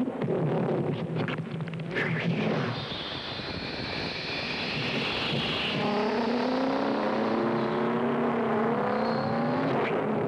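Soundtrack sound effect for super-fast motion: a loud rushing whoosh, joined about six seconds in by a pitched whine that rises slowly to the end.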